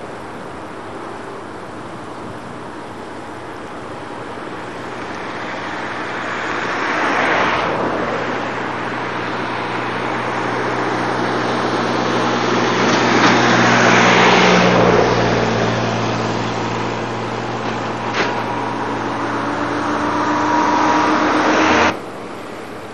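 Road vehicles passing, their noise swelling and fading about three times, loudest near the middle, then cut off abruptly near the end.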